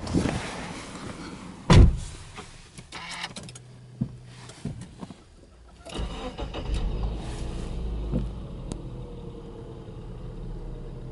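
A car door shuts with a loud thud about two seconds in, followed by a few small clicks. About six seconds in, the Subaru Legacy 2.0i's flat-four engine starts from cold and settles into a steady idle around 1,000 rpm.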